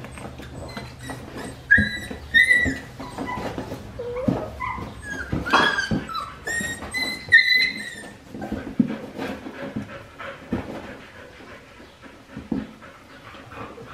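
Four-week-old Australian Shepherd puppies crying in short, high-pitched whimpers and yips, several about two seconds in and a denser run between four and eight seconds in, with paws scuffling on the raised cot beds as they tumble over each other.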